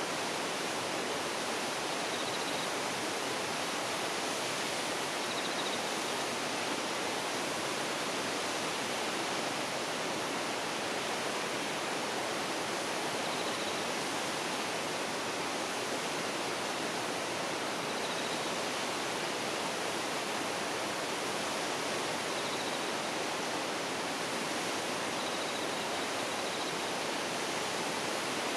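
Waterfall: falling water rushing steadily and evenly, with faint brief high chirps now and then.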